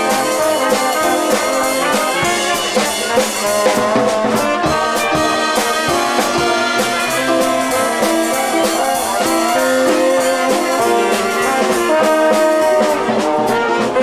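Live jazz horn section playing a tune together: trombone and trumpet with saxophone, in close harmony with some drum hits.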